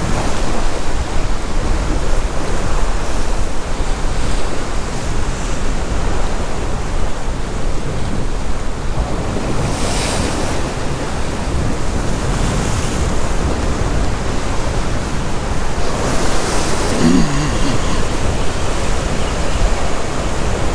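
Ocean surf washing and breaking against a rock ledge, with wind on the microphone; the wash swells louder about ten seconds in and again around sixteen seconds.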